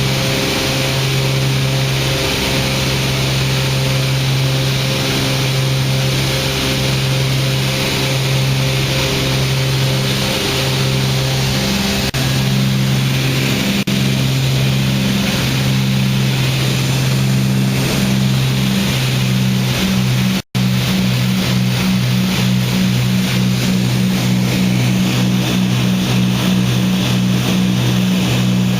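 Cessna 310's twin piston engines and propellers droning steadily, heard from inside the cabin with a steady rush of air noise. A regular throbbing beat runs through the drone, and it grows stronger after a brief dropout about twenty seconds in.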